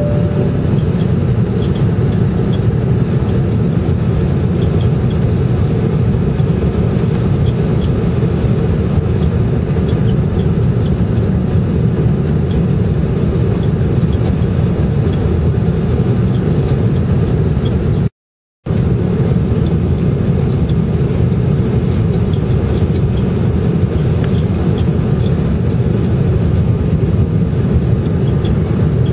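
Steady cabin noise of an airliner on approach with flaps lowered, inside the cabin: an even rumble of the engines and air rushing past the fuselage. It cuts out completely for about half a second some 18 seconds in.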